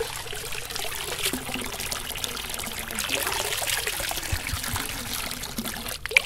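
Water trickling and splashing steadily from a stone fountain's spout into its basin. A single sharp click comes near the end.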